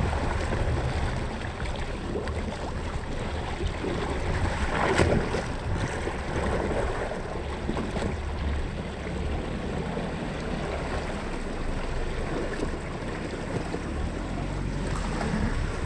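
Water churning and splashing around the front wheel of a new Land Rover Defender as it wades slowly through a deep ford, with a louder surge of splashing about five seconds in.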